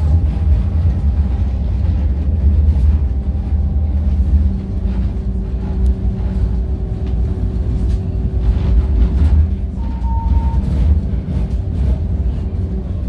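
GVB Amsterdam tram 840 running along street track, heard from inside the car: a steady low rumble of wheels on rail with a running hum. A short beep sounds about ten seconds in.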